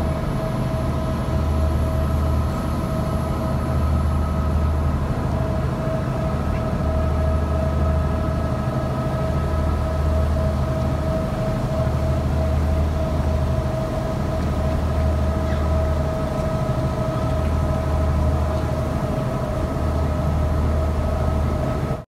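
Lake cruise ship's engine running steadily under way: a constant hum with a deep rumble that swells and drops every couple of seconds.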